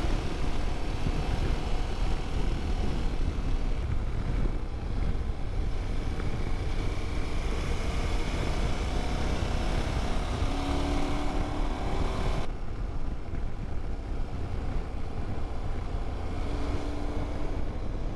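KTM 1290 Super Adventure S's V-twin engine running at road speed under the rush of riding wind. The engine note rises a few times as it pulls between about eight and twelve seconds in. About twelve seconds in, the high hiss abruptly turns duller.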